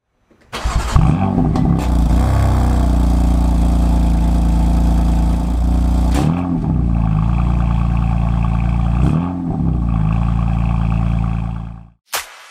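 BMW M4 Competition Pack's twin-turbo straight-six exhaust heard at the quad tailpipes: it comes in about half a second in with a flare of revs, settles to a steady idle, and is blipped twice, about six and nine seconds in. The sound fades out near the end.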